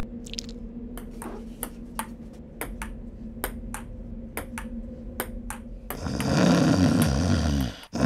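Cartoon sound-effect pings: a run of short, bright pings, about three a second, over a steady low hum. About six seconds in they give way to a louder jumble of low sounds that cuts off just before the end.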